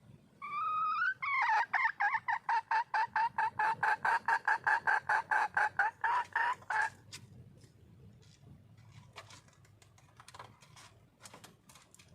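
Female red junglefowl calling for a mate: one drawn-out note, then a fast run of cackling notes at about four a second that stops abruptly about seven seconds in. Faint clicks follow.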